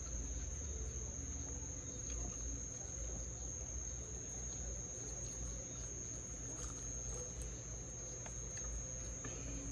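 Crickets chirring: one steady, unbroken high-pitched trill over a low rumble.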